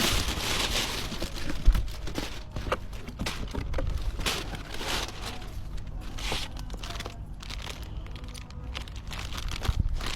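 Packaging being handled and opened: irregular crinkling and rustling, with a soft thump about two seconds in.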